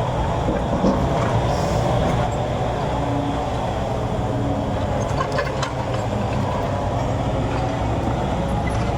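Backhoe's diesel engine running steadily at a constant pitch, with a few faint clicks a little past halfway.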